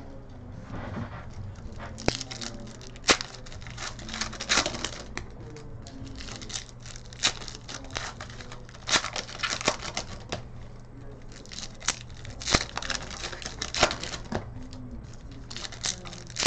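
Foil trading-card pack wrappers being torn and crinkled as basketball card packs are opened, with irregular sharp crackles and snaps, over a low steady hum.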